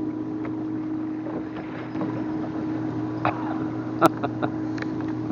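Steady hum of a motorboat engine running, with a few short sharp clicks and knocks about three to four and a half seconds in.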